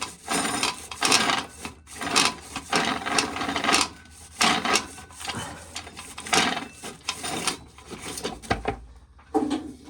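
Dried corn being shelled by hand, the kernels rasping off the cob in repeated scraping strokes about once a second.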